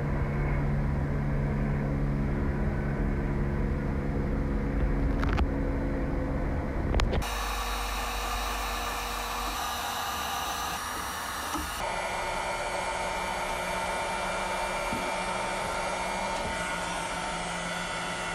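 A steady low machine hum with a few sharp knocks. About seven seconds in it gives way to a heat gun blowing hot air in a steady hiss, used with a scraper to soften and lift old paint.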